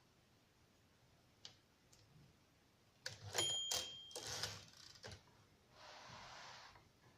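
1937 Rheinmetall portable typewriter: two faint clicks, then about three seconds in a quick run of mechanical clacks with a short bell ring from the machine.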